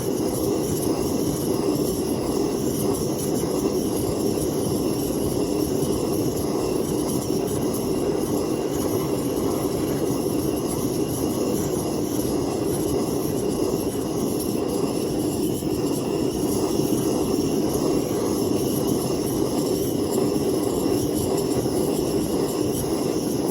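Jewellery soldering torch burning steadily while heating a copper piece to flow silver hard solder.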